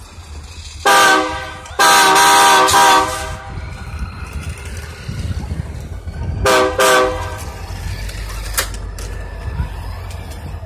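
Train air horn sounding a chord of several steady tones: a short blast about a second in, a longer blast about two seconds in, then two short blasts in quick succession around six and a half seconds, over a low steady rumble.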